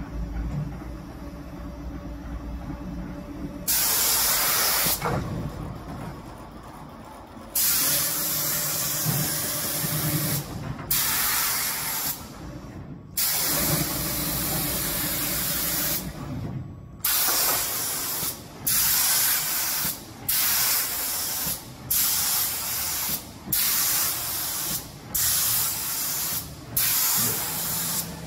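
Automatic door-painting machine's air-atomizing spray gun hissing in bursts as it sweeps over a wooden door, switching on and off as it passes. After a few seconds of low machine hum, the first bursts are long and irregular. Over the second half they become regular, about one every second and a half with short breaks between.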